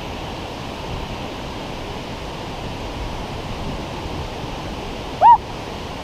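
Steady rush of river water spilling over a low dam and through the rapids below it. About five seconds in, one short, loud, high chirp rises and falls in pitch.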